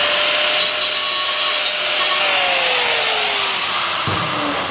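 Electric angle grinder running against the sheet-steel patch panel, trimming it, with a loud hissing grind over the motor's steady whine. About two seconds in the grinder is switched off and its whine falls away as it winds down, followed by a knock near the end.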